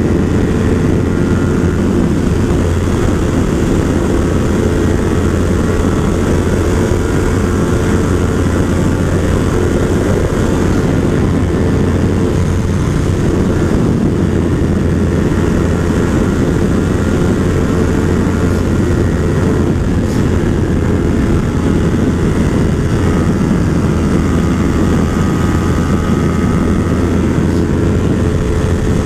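Yamaha R3's parallel-twin engine running steadily at high highway speed, around 165 km/h, under heavy wind rush on the microphone.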